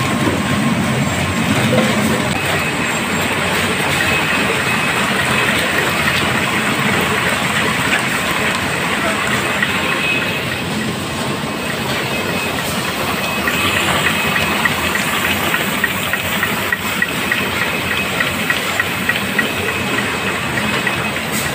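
Automatic bottle filling and capping line running: a steady, dense mechanical clatter of the machine and of bottles jostling along the conveyor, with faint high whines. Through the second half, many small quick clinks stand out.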